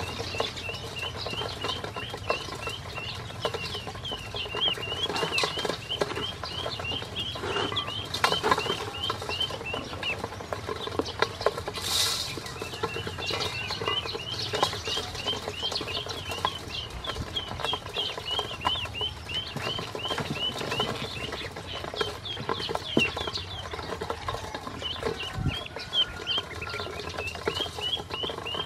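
A group of ducklings peeping nonstop in quick, high chirps while pecking feed in a stainless steel bowl, with beaks and feet tapping and scraping on the metal. The peeping pauses for a couple of seconds about ten seconds in, broken by a brief hiss.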